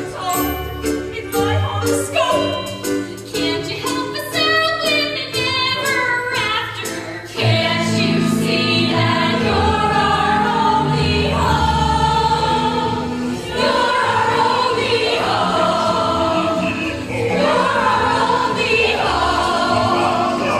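Mixed ensemble of voices singing a musical-theatre chorus number over instrumental accompaniment. The first seven seconds carry a rhythmic accompaniment with sharp taps; then the singing jumps louder into full, sustained chorus chords.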